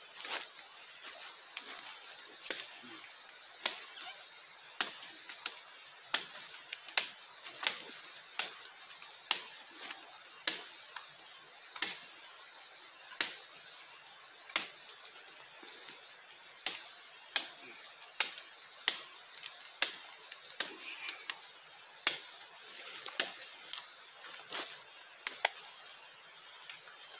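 A long run of sharp, irregular knocks or taps close by, roughly one or two a second, over a steady high hiss from the rainforest.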